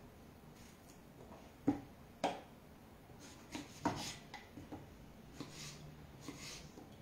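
Kitchen knife cutting a zucchini on a wooden cutting board: a few scattered knocks of the blade against the board, the sharpest about two and four seconds in, with softer cutting sounds between.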